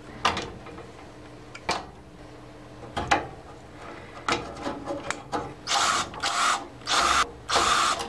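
A few light clicks as wire connectors are worked on the board's terminals, then a cordless drill-driver running in four short bursts over the last two seconds or so.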